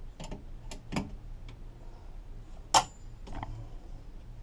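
Metal wrench clicking and clinking on a car battery terminal nut as the battery is disconnected: a few irregular light clicks, with one sharper clink about two-thirds of the way through.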